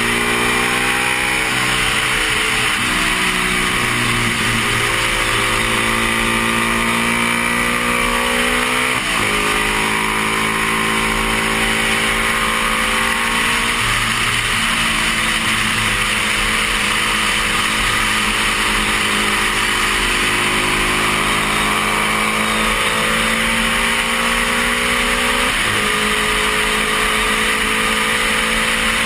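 Stock 1972 Honda CB350's air-cooled parallel-twin engine under racing throttle, its pitch climbing slowly, then dropping suddenly at upshifts about nine seconds in and again about 25 seconds in. Loud wind rush over the helmet camera runs under the engine.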